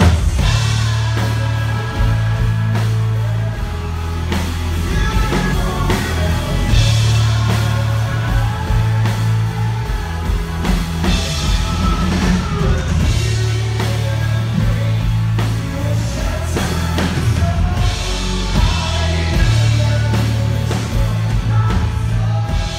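Live pop-rock band playing: a lead singer over electric and acoustic guitars, a heavy bass line and a drum kit, heard loud from the audience in the hall.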